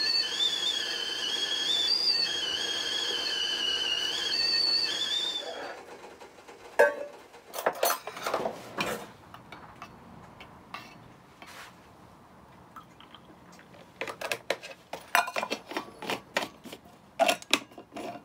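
Stovetop whistling kettle whistling at the boil with a wavering pitch, stopping about five or six seconds in. After it, scattered clinks and knocks from a stainless steel vacuum flask and its screw lid.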